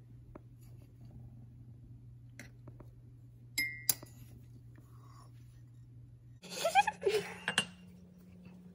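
A metal spoon clinking against a ceramic mug and a glass sugar jar as sugar is spooned in: a few scattered light clinks, one with a short ring about three and a half seconds in. Then a burst of laughter, the loudest sound, near the end.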